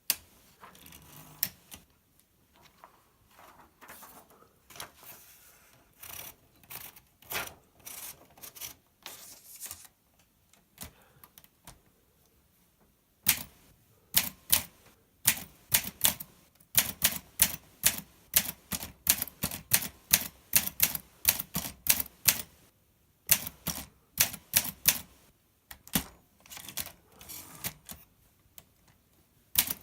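Olympia SM2 portable manual typewriter: soft clicks and handling noises for the first dozen seconds, then a brisk run of sharp keystroke clacks from about halfway in, with a short break a few seconds before the end.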